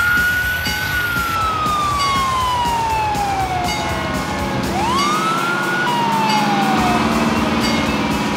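Fire engine siren wailing: the pitch climbs quickly, then slowly falls away, twice over.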